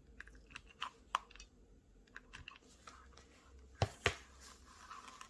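Scattered light clicks and taps from handling a strand of plastic pearl beads and setting a hot glue gun down on a cutting mat, with two sharper taps about four seconds in.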